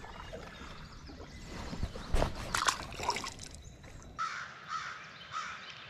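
A few knocks and rattles of gear being handled on a kayak, the loudest about two seconds in, then a bird calling three times in quick succession, short calls about half a second apart, near the end.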